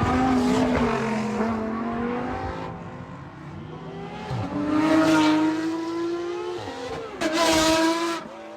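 Supercar engines revving and accelerating past one after another, their pitch rising and falling. A louder rev swells about five seconds in, and another loud burst comes in suddenly near the end.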